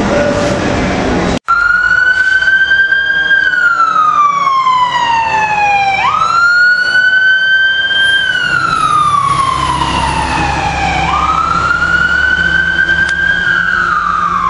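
An emergency vehicle's siren on a slow wail, starting abruptly about a second and a half in after a short stretch of background noise: its pitch climbs and falls in long sweeps, about three full cycles.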